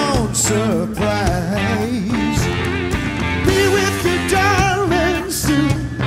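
Rock music with electric guitar and drums, the lead lines bending and wavering in pitch.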